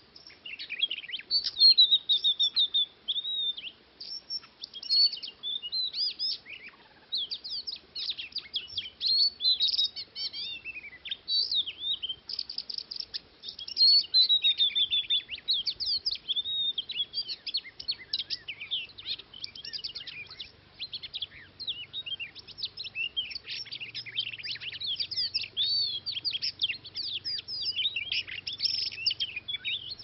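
Oriental magpie-robin singing: a fast, varied, nearly continuous run of clear whistles, trills and chirps.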